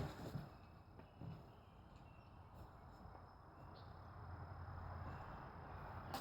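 Faint rustling and handling noise, as of tying shoelaces, with a few soft knocks in the first second or so. The rustle grows a little louder over the second half, with a faint steady high whine underneath.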